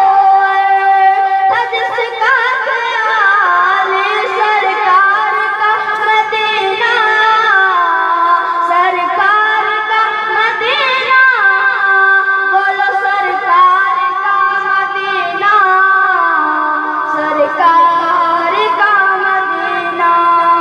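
A solo voice sings a naat (devotional song) through a loudspeaker system. It holds long, high notes that bend and slide between pitches, with melismatic ornaments and few pauses.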